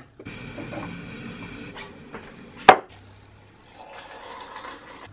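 Stainless-steel electric kettle heating with a steady rushing hiss, then a sharp click about two and a half seconds in. Near the end, hot water is poured from the kettle into a mug.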